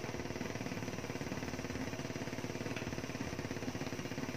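Thick tomato sauce simmering in a frying pan over a lit gas burner: a steady, fast, even bubbling and sputtering, with the burner's hiss beneath it.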